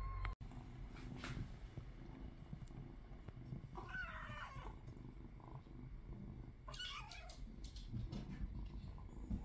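Golden British shorthair kitten meowing twice, once about four seconds in and more briefly about three seconds later, over a faint low purring.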